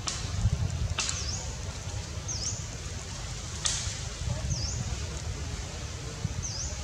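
Outdoor tree-canopy ambience: a short high chirp that dips and rises, repeated four times a second or two apart, with three sharp crackles and a steady low rumble of wind or handling on the microphone.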